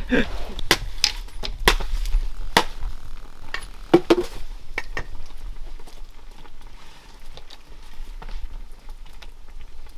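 Irregular knocks and clatter of outdoor cooking and food handling, over a steady low rumble.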